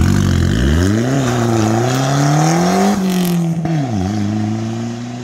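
Ford Escort rally car's engine accelerating hard away out of a hairpin. The revs climb steeply, drop briefly at each of three upshifts, then hold steady and fade as the car draws away.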